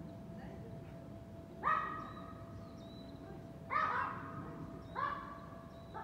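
A dog barking three times: once about two seconds in, again two seconds later, then once more a second after that. A low steady hum of city background runs beneath, and a bird chirps faintly between the barks.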